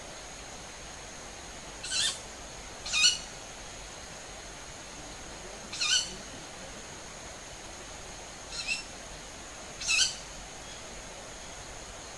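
A bird's short, harsh, high screeching call, repeated five times at irregular intervals of one to three seconds, the fourth fainter than the rest. The bird is calling as it flies away.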